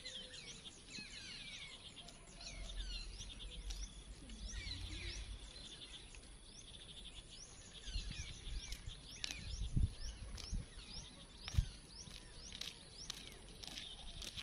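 Outdoor ambience of birds chirping: many short, quickly falling chirps repeating over and over, with a few low thumps in the second half.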